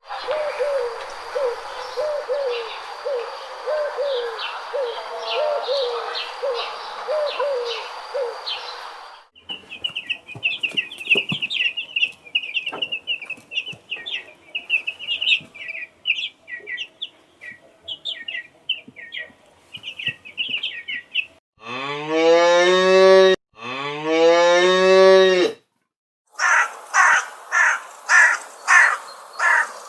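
A run of animal sound effects one after another: short repeated calls over a steady hiss, then birds chirping, then two long cow moos, rising in pitch, which are the loudest sounds, followed by a quick series of short sharp calls.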